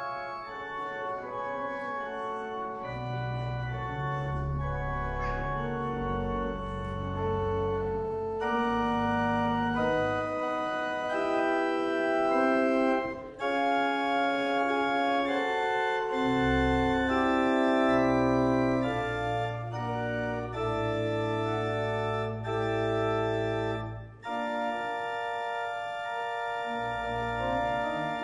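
Church organ playing a slow piece in sustained chords, with deep pedal bass notes coming in about three seconds in. The music breaks off briefly twice, near the middle and again near the end.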